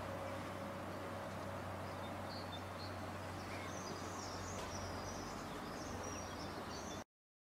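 Faint outdoor ambience of a distant electric train, a steady low rumble, with birds chirping. A faint steady tone fades out about two seconds in, and the sound cuts off suddenly about seven seconds in.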